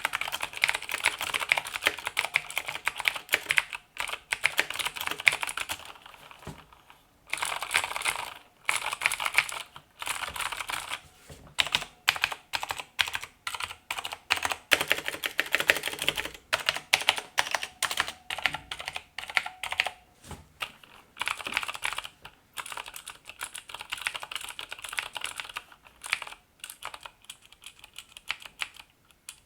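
Fast typing on a 1989 Chicony KB-5192 mechanical keyboard with Cherry MX Pale Blue clicky switches: a dense run of sharp key clicks, unlubed, on stock thin dye-sublimated keycaps with a plateless build, broken by a few short pauses.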